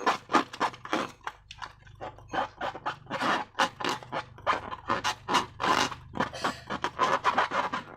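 Slime being worked by hand, making a quick, irregular run of sticky squelches and wet clicks, several a second.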